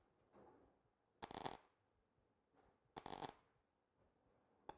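EWM Picomig 180 MIG welder spot-welding thin car body sheet with 0.8 mm wire in interval mode: the arc strikes in short bursts of about half a second, one every second and a half or so, with a third just starting at the very end.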